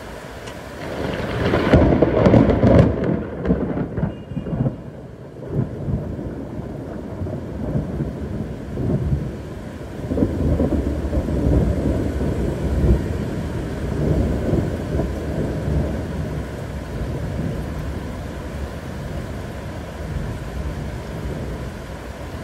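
A loud clap of thunder about a second in, followed by long rolling rumbles that slowly die away, over the steady hiss of heavy rain.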